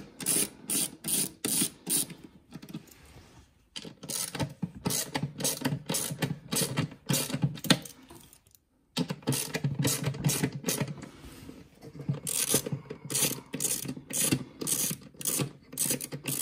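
Hand ratchet wrench clicking in quick runs of strokes while working bolts on the engine air filter housing, pausing briefly twice.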